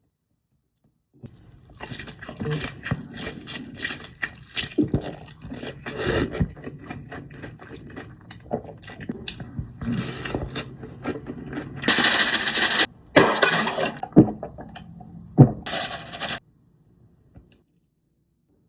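Close-up rustling and crinkling of takeout food packaging, with scrapes and clicks, starting after about a second and stopping near the end.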